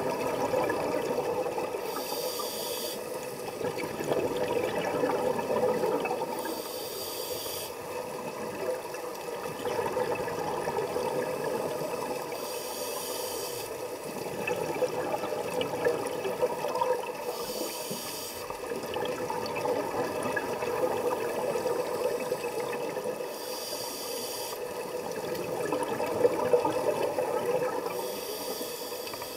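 Scuba diver's regulator breathing, heard underwater: a hiss lasting about a second comes roughly every five seconds, six times, with bubbling of exhaled air in between.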